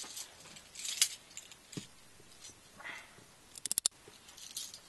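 Metal handcuffs being put on wrists behind the back: the chain jingles and clinks amid clothing rustle. Near the end comes a quick run of about six sharp ratchet clicks as a cuff is closed tight.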